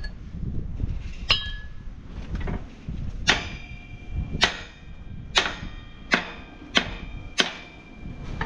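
Hammer blows on steel, about seven ringing clangs roughly a second apart, with a lighter one first, while working to free seized bolts on a Mack truck's leaf spring and trunnion.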